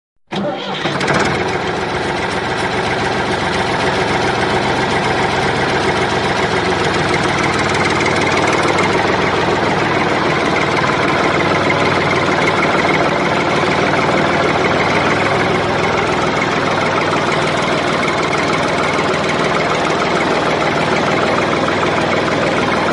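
Tractor engine running steadily at idle. It starts abruptly just after the beginning and cuts off abruptly at the end.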